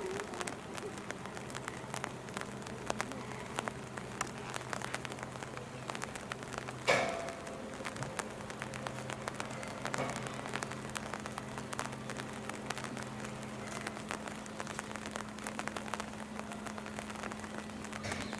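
Steady rainfall with many small drop hits, over a steady low hum. A single sharp knock stands out about seven seconds in.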